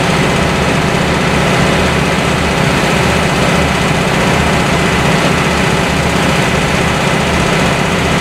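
A diesel engine idling steadily, a loud low throbbing hum with no change in speed.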